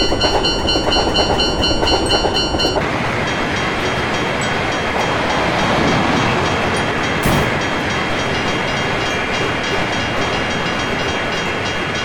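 Railroad crossing warning bell ringing in a fast, even rhythm and cutting off about three seconds in, over the steady rushing noise of a train passing through the crossing. There is a single sharp click about seven seconds in.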